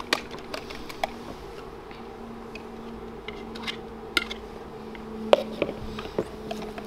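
Tempura batter being whisked in a bowl, with scattered clicks and taps of the whisk against the bowl and a knife on a wooden cutting board, over a steady low hum.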